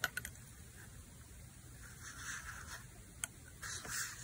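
Faint handling sounds of a fountain pen in a glass ink bottle: a light click at the start and another about three seconds in, with soft brief rustles as the freshly filled pen is lifted out of the ink.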